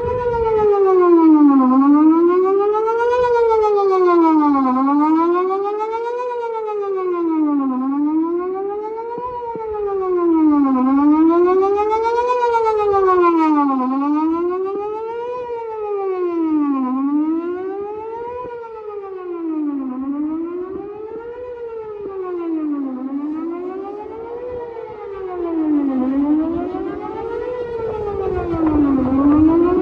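Whelen WPS 4008 electronic outdoor warning siren sounding a wail, its pitch rising and falling about every two and a half seconds, with the loudness slowly swelling and fading.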